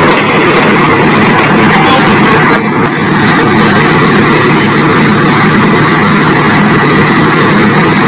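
Dynapac combination roller's diesel engine running loud and steady as the roller creeps down the loading ramps off a flatbed truck, with a brief drop in level about two and a half seconds in.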